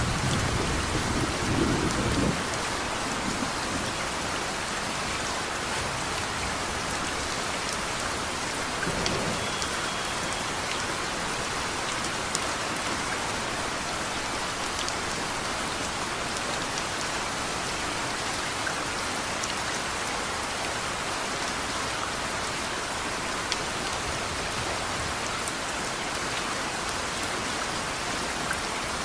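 Steady heavy rain falling, with a few single drops ticking. A low rumble of thunder dies away about two seconds in, and a fainter rumble comes around nine seconds.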